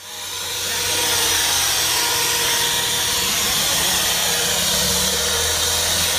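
Handheld electric plaster floating machine running steadily, its spinning disc rubbing over cement render with a continuous hiss.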